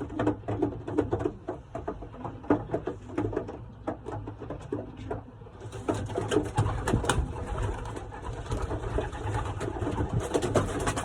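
Racing pigeons cooing in their loft, with many short rustles and clicks from the birds moving about.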